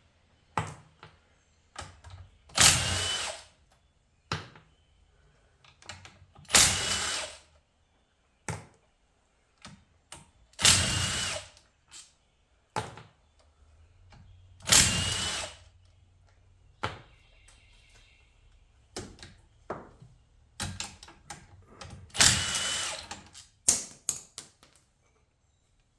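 A cordless power tool spinning bolts out of an automatic transmission case in short runs of about a second each, roughly every four seconds, with small metal clinks of bolts being handled in between.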